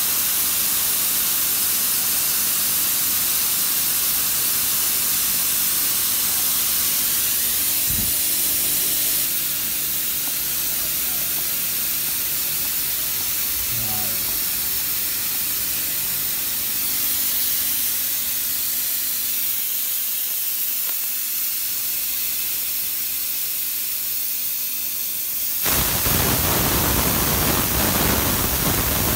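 Compressed air hissing steadily out of a truck's primary air tank through its opened drain valve, as the tank is bled down to test the one-way check valve between the primary and secondary tanks. About three-quarters of the way through, a louder, rougher noise comes in.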